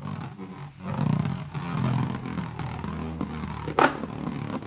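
Beyblade Burst spinning top whirring on the plastic floor of a Beyblade stadium, a steady, slightly wavering drone, with one sharp click near the end.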